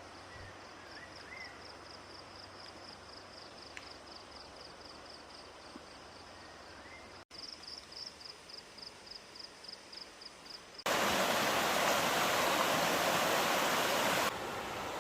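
Jungle ambience: a high chirp pulsing steadily about four times a second, with a couple of short bird chirps. About eleven seconds in, the loud, steady rush of a waterfall or stream takes over.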